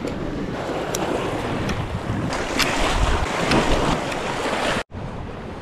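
Wind buffeting the microphone over the wash of sea waves, a steady rush. It breaks off for an instant near the end and comes back quieter.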